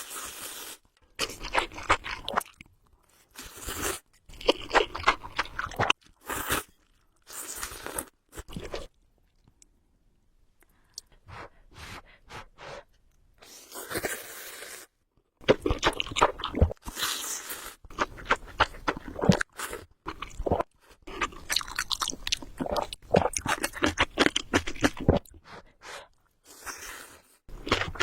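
A person eating close to the microphone: crunching and chewing in bursts of crisp clicks separated by short pauses, with a mostly quiet stretch about nine to thirteen seconds in.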